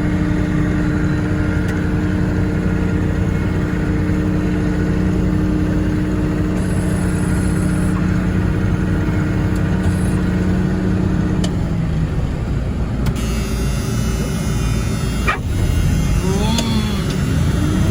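A vehicle engine running at a steady speed, its pitch dropping about twelve seconds in, followed by rougher running and a single knock.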